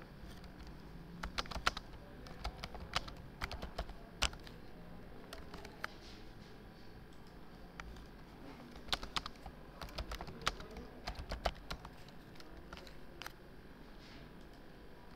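Computer keyboard typing: irregular runs of keystrokes in two flurries, one in the first few seconds and another a little past the middle, with a pause between.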